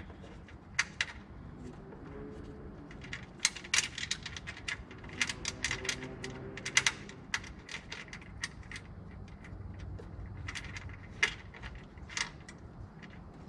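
Light metallic clicks and clinks, scattered irregularly, as gloved hands work the front mount intercooler's bracket onto its mounting studs and handle the small nuts and hardware.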